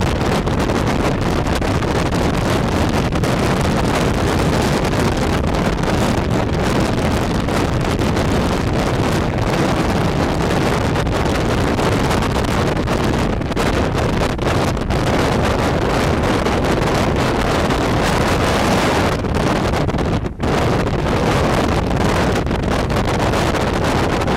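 Strong wind blowing across the camera microphone: a steady, loud rumbling rush, heaviest in the low end, with a brief dip about twenty seconds in.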